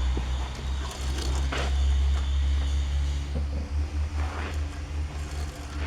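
Die-cast toy car rolling along a plastic track: a steady low rumble with occasional light clicks and scrapes.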